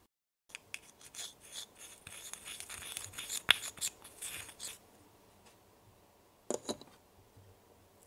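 Small plastic spatula stirring and scraping wetted Konapun powder around a tiny glass bowl: a quick, scratchy scraping with one sharp click about three and a half seconds in. A couple of light knocks follow a little later.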